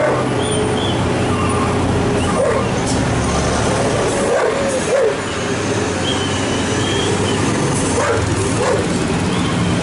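Truck and car engines running steadily in slow uphill traffic, with a dog barking several times over them.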